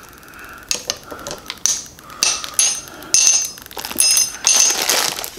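Small ceramic spoon being handled, with hard plastic tapping and scraping against it: a run of sharp clicks and clinks starting about a second in, several with a short high ring.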